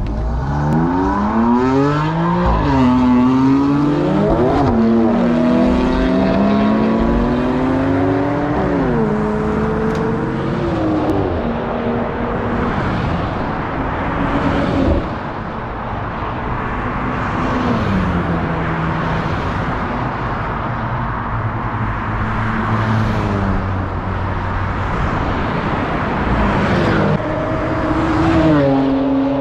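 Car engines accelerating hard through the gears, their pitch climbing and dropping back at each upshift as the cars pull away and pass by. Near the end another engine note rises and holds steady.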